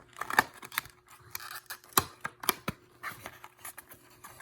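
Cardboard model box being opened by hand: a series of sharp clicks and snaps from the flaps and packing, with soft scraping in between.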